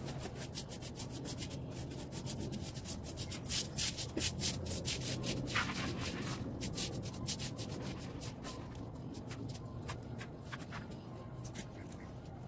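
Bristles scraping over a hard floor in quick, irregular strokes, heaviest about a third of the way in and thinning toward the end: sweeping or scrubbing the floor clean.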